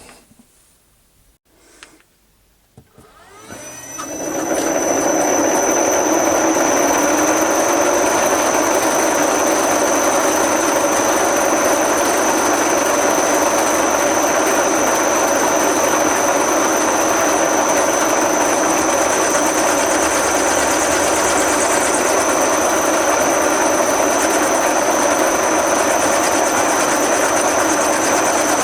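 Metal lathe machining out an old electric motor body: the machine spins up about three seconds in, rising in pitch, then runs steadily with a constant high whine.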